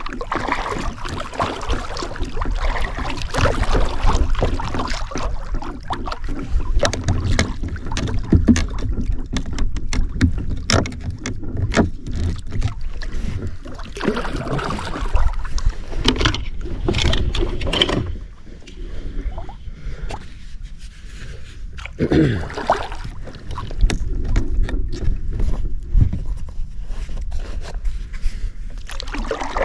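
Kayak paddle dipping into the lake water stroke after stroke, with wind rumbling on the microphone. The paddling eases off for a few seconds a little past halfway.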